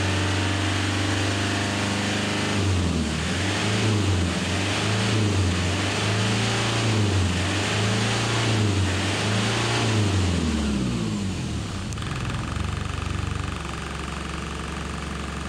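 2000 Toyota Hilux's 3.0-litre 1KZ turbo diesel engine, heard from inside the cab, held at about 3,000 rpm, then revved up and down repeatedly. A few seconds before the end it drops back to a steady idle.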